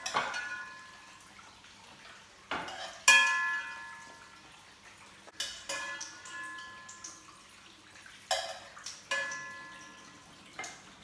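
A metal utensil clinking and knocking against a frying pan and plate while fried potato patties are lifted out, about half a dozen ringing clinks, the loudest about three seconds in.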